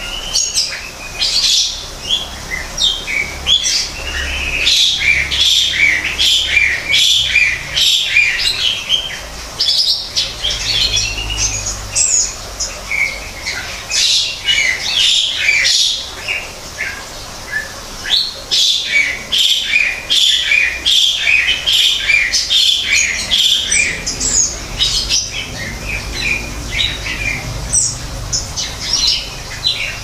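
Greater green leafbird (cucak ijo) singing a long, rapid run of varied chirps and whistles, with a few short lulls.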